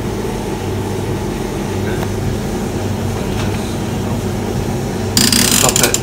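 Hotpoint Aquarius TVHM 80 vented tumble dryer running, a steady motor hum with the drum turning a load of bed linen. About five seconds in, a loud burst of noise is followed by a run of clicks as the timer dial is turned by hand.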